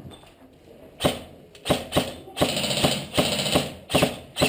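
Airsoft electric rifle firing: sharp single shots starting about a second in, a short rapid burst in the middle, then two more single shots near the end.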